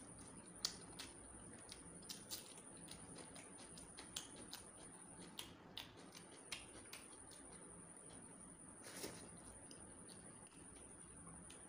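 Faint, irregular wet clicks and smacks of someone eating rice and chicken curry by hand: chewing with an open mouth and fingers squishing and mixing rice on the plate. A faint steady high-pitched whine sits underneath.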